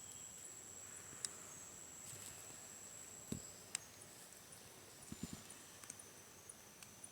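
Rainforest insects, quiet overall, keeping up steady high-pitched buzzing with a faster repeating high chirp over it. A few sharp clicks and some soft low knocks break in, a small cluster of knocks about five seconds in.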